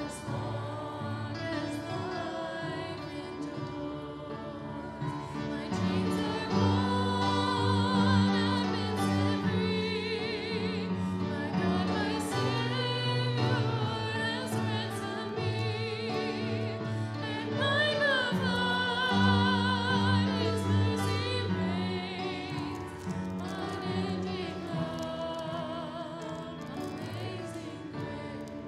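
Congregation singing a hymn with grand piano accompaniment, a voice with wide vibrato standing out above the group.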